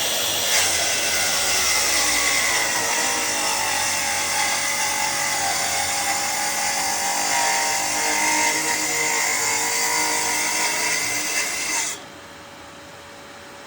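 Festool plunge track saw cutting along a solid wooden door on a shallow 20 mm first pass, the motor note dipping and shifting under load. About twelve seconds in the saw sound cuts off suddenly, leaving a quieter steady hum.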